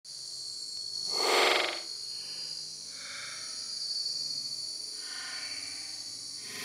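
Steady, shrill chorus of night insects, with a louder call rising out of it about a second in and two fainter calls later.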